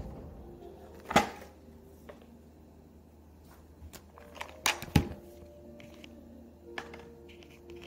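A few sharp clicks and knocks of small objects being handled and set down on a tabletop. The loudest come about a second in and as a pair around five seconds in.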